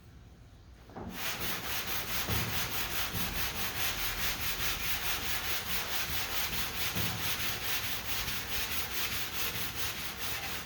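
Hand block-sanding of dry lacquer primer with 180-grit paper on a long sanding block: rapid, even back-and-forth rubbing strokes that start about a second in. The primer is dry enough not to gum the paper, and the blocking is bringing out low spots over the bondo repair.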